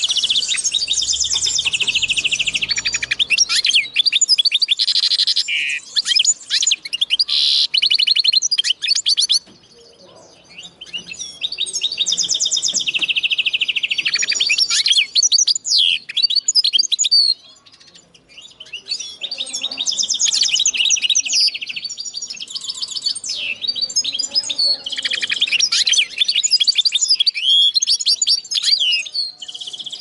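Common linnet × canary hybrid singing long phrases of fast, high trills and chirps, with two short breaks in the song, about a third and about two thirds of the way through.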